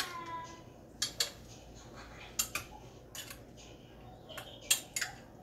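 Metal spoon clinking against a glass bowl while thick cooked-milk cream (malai) is scooped: a series of light clinks, often in pairs, the first one ringing briefly.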